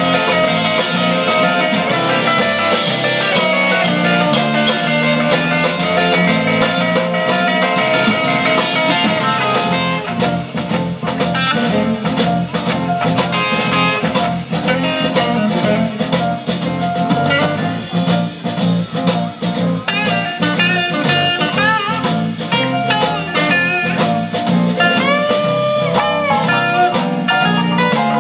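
Live blues band playing an instrumental passage with no vocals: electric guitar, bass guitar, drum kit and keyboard. About 25 seconds in, one note is held and bent up and back down.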